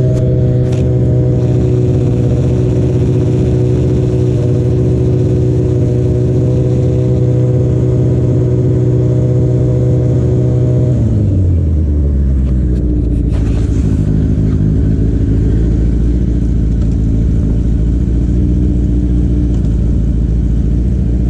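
Kawasaki ZX10R inline-four engine held at steady high revs against the launch-control rev limiter, then dropping back to a steady idle about eleven seconds in. A few light clicks follow shortly after.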